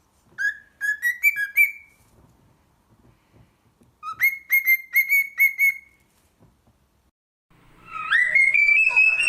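Cockatiel whistling a tune: three runs of short, clear whistled notes with pauses between them. The first and last runs step upward in pitch; the middle run stays on one pitch.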